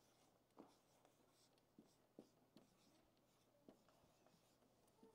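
Faint strokes of a dry-erase marker on a whiteboard as words are written, a handful of short separate strokes.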